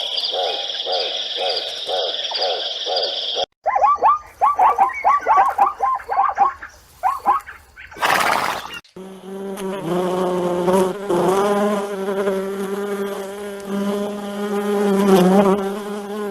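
A string of separate animal recordings: rhythmic pulsing over a steady high trill, then a run of quick falling chirps, a brief burst of noise, and from about halfway on a steady insect buzz with a low hum.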